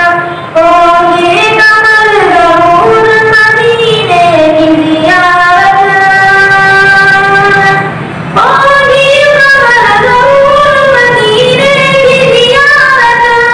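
A boy singing a naat, an Urdu devotional poem, solo into a handheld microphone: long held notes that slide up and down between pitches, with brief pauses for breath about half a second in and about eight seconds in.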